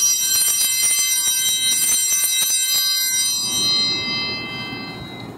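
Altar bells, a cluster of small Sanctus bells, shaken in a rapid jingling peal that marks the elevation of the chalice at the consecration. The shaking stops a little over three seconds in and the ringing fades away over the next second or so.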